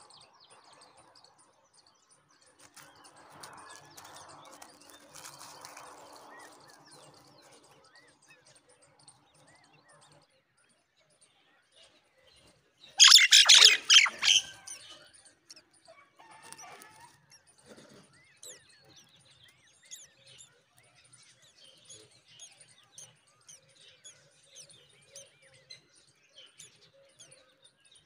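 Myna nestlings in the nest making many small, high chirps, with one loud, brief flurry of sound about halfway through.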